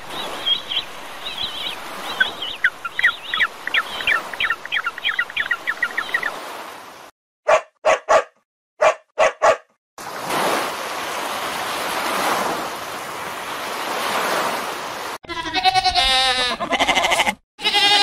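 A run of separate animal recordings: rapid chirping calls over a steady hiss, then five short loud calls with silences between, then a steady rushing noise. Near the end, goats bleating with a wavering voice.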